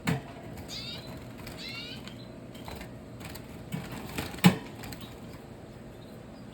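Knocks and rattles from birds being handled into a box, the loudest knock about four and a half seconds in, with two short bursts of twittering from red siskins about a second apart near the start.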